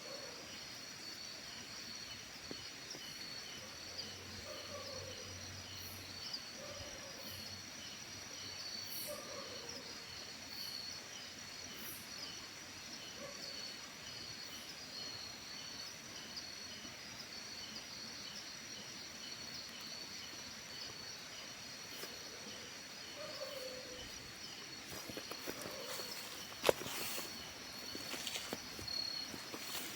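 Outdoor ambience of insects: a steady high-pitched trilling, with a regular pulsed chirping under it through the first half. Short low animal calls come every few seconds, and a single sharp click sounds near the end.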